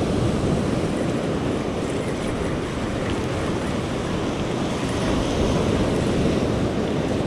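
Surf breaking and washing up a sandy beach, a steady rushing noise, with wind buffeting the microphone.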